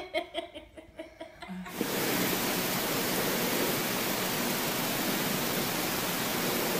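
A person giggling briefly, then from about two seconds in a steady, even hiss with no other sound.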